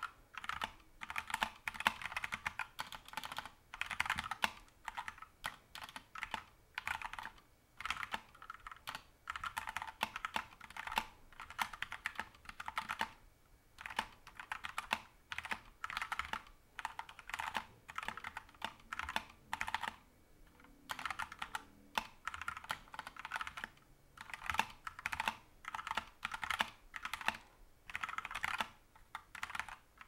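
Fast touch-typing on a Havit KB487L mechanical keyboard with linear red-style switches: a rapid, continuous run of key clacks at about 68 words per minute, broken by a few brief pauses.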